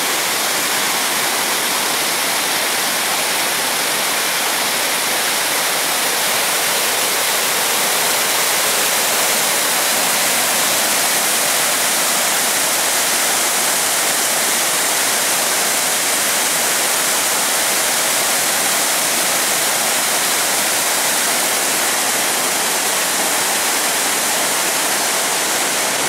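Steady rush of white water cascading over rocks in a stream, an even roar with no break.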